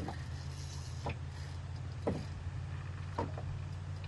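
Spinning reel being cranked to retrieve line, with short sharp clicks or knocks about once a second over a steady low hum.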